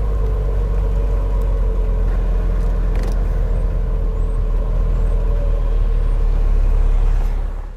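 Car engine running with a steady low rumble, cut off abruptly near the end.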